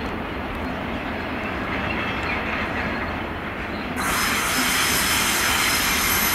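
Freight train wagons rolling slowly over curved track and points, wheels grinding on the rails. About four seconds in, a much louder high hissing screech of wheel flanges on the curve sets in and holds.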